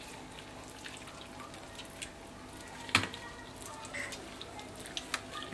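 Gloved hands peeling the skin off a boiled beef tongue: small wet clicks and squelches, with one sharp click about three seconds in.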